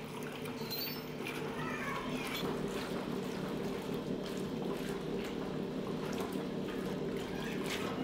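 Gear-drive top-loading washing machine running with a full tub: the agitator churns and splashes the water and a cloth around the steel drum, over a steady low hum.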